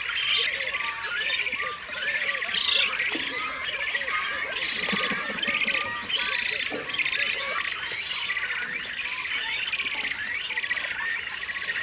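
Many birds of a bird colony calling at once: a dense, unbroken din of overlapping harsh squawks and short chirps.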